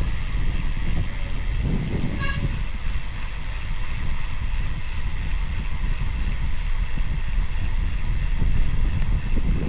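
Road bicycle riding on wet tarmac, with wind buffeting the microphone and tyre noise. About two seconds in there is a brief high-pitched squeal from the bike's squeaky disc brake.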